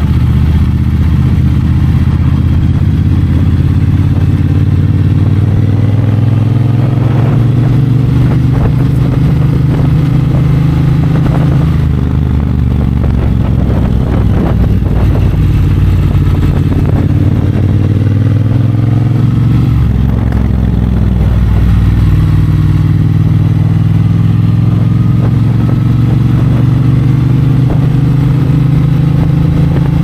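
Triumph Bonneville Bobber's 1200 cc parallel-twin engine running steadily while the bike is ridden, its engine note shifting several times.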